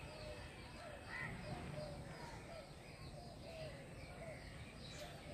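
A bird calling over and over outdoors, short curved notes about one to two a second, over a low steady background hum.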